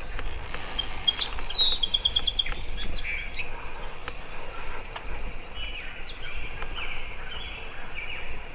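Small birds chirping and singing, with a quick run of evenly repeated high notes about two seconds in, over steady outdoor background noise.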